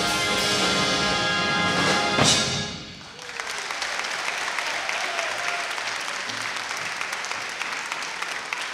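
Big band of saxophones, trumpets, trombones, piano, upright bass and drums ends its tune on a held chord, closing with a loud final hit about two seconds in. The chord rings away, and an audience starts applauding, which carries on steadily.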